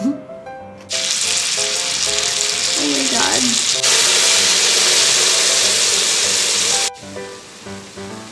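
Beef steak sizzling loudly and steadily on a hot, fat-slicked electric griddle for about six seconds over background music. The sizzle cuts off suddenly near the end, leaving the music alone.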